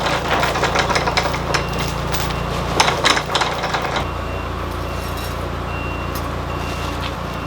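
A heavy vehicle's engine running steadily, with metal clinks and rattles during the first few seconds. From about four seconds in, a reversing beeper sounds in short regular beeps less than a second apart.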